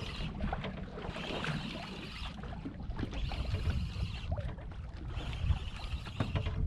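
Sea water sloshing and lapping against the hull of a drifting ski boat, with wind buffeting the microphone.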